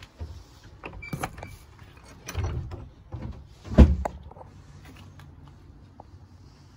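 A door being pushed open amid footsteps and handling knocks. There is a short squeak about a second in and one heavy thump just under four seconds in.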